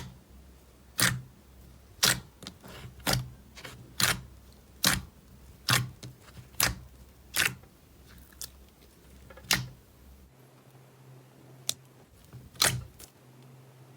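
Slime being pressed and worked by hand, giving sharp popping clicks about once a second, then only a few more spaced out after about eight seconds.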